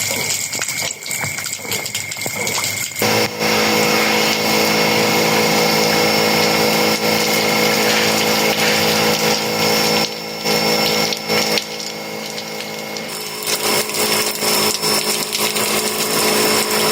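Electric pressure washer running: a steady motor and pump hum under the hiss of a high-pressure water jet, with abrupt jumps in the sound a few times where clips are cut together.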